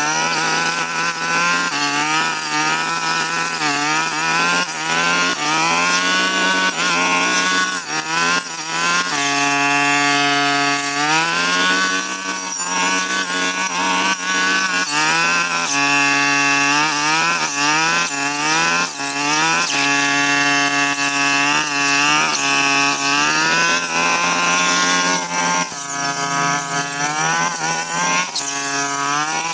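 Brush cutter engine running at high revs, its pitch repeatedly dropping and climbing back as the blade cuts through overgrown brush.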